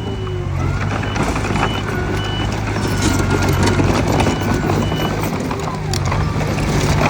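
Mitsubishi BD2F bulldozer working, its diesel engine running steadily under the clanking and rattling of its steel tracks, with occasional squeals. Short high beeps, as from a reversing alarm, sound now and then.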